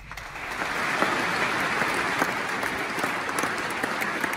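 Church congregation applauding: dense, steady clapping from many hands that builds up over the first second.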